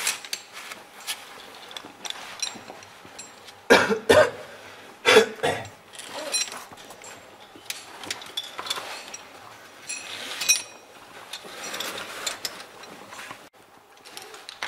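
Caver climbing a rope on mechanical ascenders: scattered metallic clicks and rattles of the ascenders and rope gear, with some scraping against the rock. Two loud vocal bursts from the climber about four and five seconds in.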